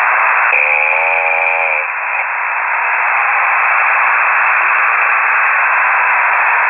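Steady radio static, a hiss confined to a narrow voice band, coming through a KiwiSDR web receiver tuned to amateur radio. About half a second in, a short pitched voice-like sound lasts just over a second, then the hiss continues alone.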